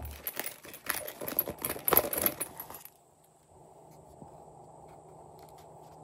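Small plastic sequins and heart-shaped confetti clicking and rattling as they are shaken out of a fabric pouch into a glass tray of slime, busiest about two seconds in and stopping after about three seconds.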